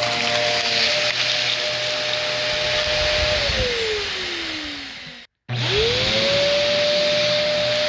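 Vacuum cleaner motor running with a steady whine. About three and a half seconds in it is switched off and winds down with a falling whine. After a brief dead silence it starts up again, the whine rising quickly back to a steady pitch.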